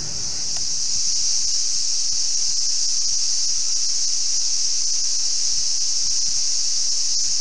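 Steady, high-pitched insect drone that swells in over the first second and then holds level, with a few faint low thuds scattered beneath.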